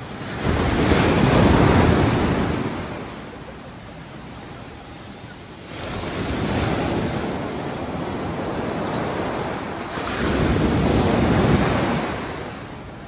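Ocean waves breaking on a shore: a steady rush of surf that swells three times, the first surge the loudest.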